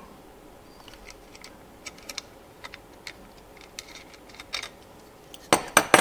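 Small steel C-clamp being unscrewed and taken off a circuit card: light metal clicks and ticks, with a few louder metallic clinks near the end.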